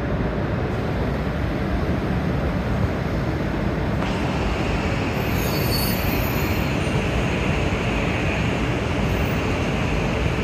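Shinkansen train moving slowly on the station track, a steady rail rumble with a higher hissing squeal joining about four seconds in.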